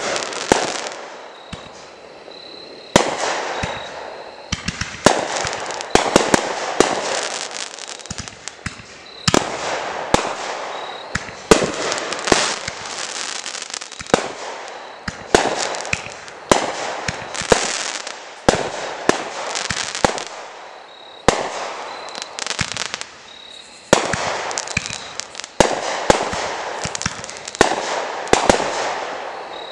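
Aerial fireworks going off in rapid succession, with sharp bangs every second or so and some close together. Each bang fades out in a rush of noise as the burst spreads.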